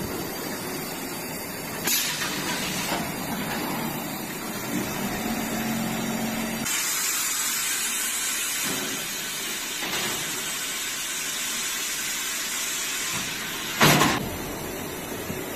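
Mattress-making machinery running, with a long hiss in its middle part, typical of a pneumatic air release, and two short sharp bursts, one about two seconds in and a louder one near the end.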